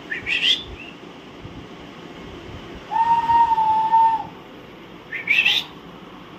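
Alexandrine parakeets giving two short, harsh screeches, one near the start and one about five seconds in. Between them comes one long, steady whistle, held for about a second and a half.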